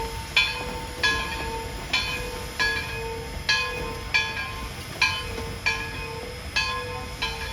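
Steam locomotive bell of East Broad Top No. 16 ringing steadily, about two strokes a second, each stroke ringing out and fading, over the low rumble of the train pulling in.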